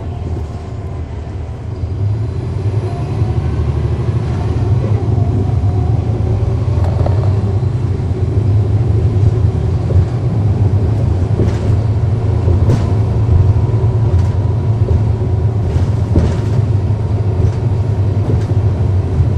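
Cummins ISL9 inline-six diesel engine of a NABI 40-SFW transit bus running under way, heard from inside the bus: a steady deep rumble that gets louder about two seconds in and stays up. A few sharp clicks sound over it in the second half.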